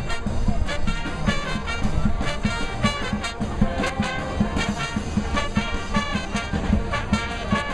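Street brass band of trumpets, trombones and sousaphones playing lively music with a steady beat.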